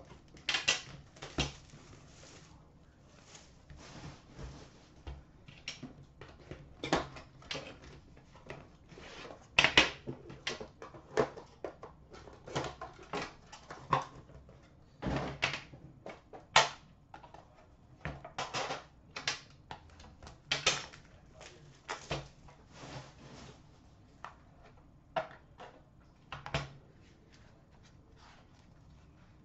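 Plastic wrap being cut and peeled off a metal hockey-card box tin, then the tin opened and its inner box handled: irregular crinkling, clicks and knocks, a few of them sharp.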